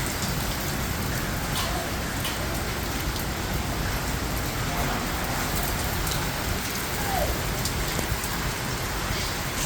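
Heavy rain falling steadily during a thunderstorm, an even hiss broken by scattered sharp ticks of drops striking a surface.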